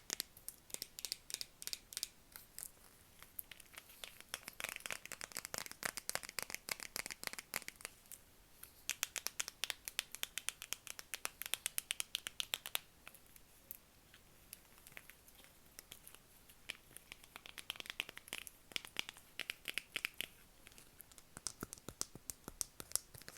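Close-miked ASMR tapping and crinkling on objects: fast runs of crisp, sharp clicks, several a second, with a few sparser stretches between runs.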